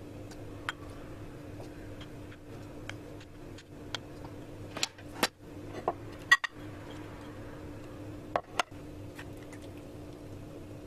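A spoon clinking and scraping against a steel pot of rice, and dishes knocking on a ceramic plate as food is served: scattered sharp clinks, the loudest about six seconds in, over a faint steady hum.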